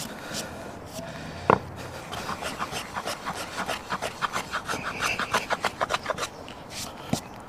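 Stanley No. 4 hand plane shaving the sawn end of a 4x2 in quick, short strokes, a rapid scraping run, to clean up a corner that is slightly out of square. A single sharp wooden knock comes about a second and a half in.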